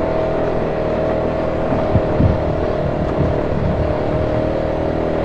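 Off-road vehicle engine running steadily under load while climbing a rough trail. A few low knocks come about two seconds in.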